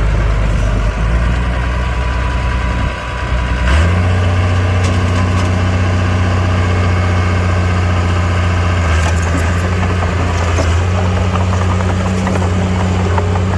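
Komatsu mini bulldozer's diesel engine running steadily. After a brief dip about three seconds in, the engine speeds up and holds the higher note, with a few light knocks later on.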